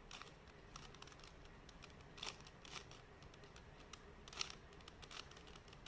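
Faint plastic clicks and scrapes of a 3x3 Rubik's cube's layers being turned by hand, a few separate turns with the clearest about two seconds in and just after four seconds.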